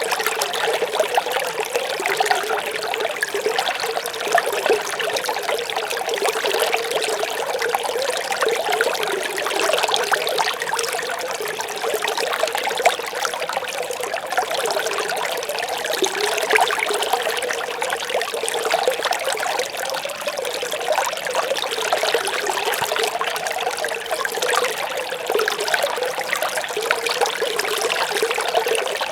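A small stream babbling and trickling steadily, without pauses.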